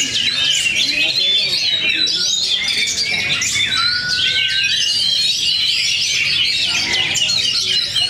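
Many caged oriental magpie-robins (kacer) singing in competition at once: a dense, overlapping, unbroken chorus of whistles, chirps and trills. About four seconds in, one longer, slightly rising whistle stands out below the rest.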